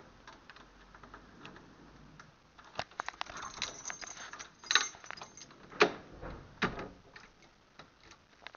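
Keys jangling and clicking in a door lock, then clicks of a lever handle as a glass shop door is opened, with a couple of heavier knocks near the end.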